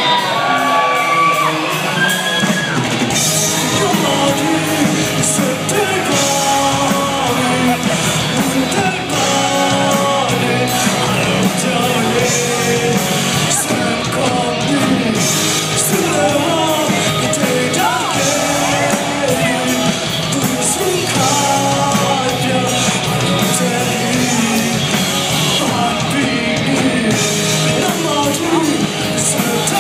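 Music with singing, with shouts and whoops over it, running steadily and loud.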